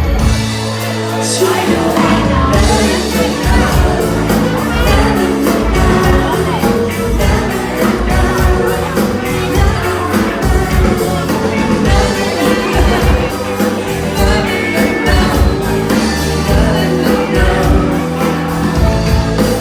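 A singer performing a pop song with a band, over a steady drum beat.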